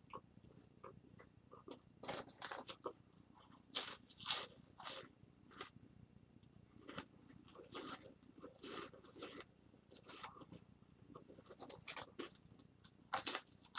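Dry saltine crackers being crunched and chewed in a full mouth with no drink, in irregular bursts of crunching with short pauses between. The loudest crunches come about four seconds in and again near the end.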